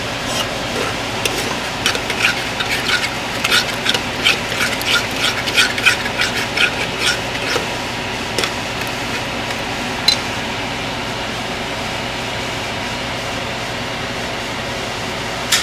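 Metal spoon stirring and scraping thick masala gravy against a pressure cooker pot, with quick clinks and scrapes through the first half, then only the masala sizzling steadily as it cooks.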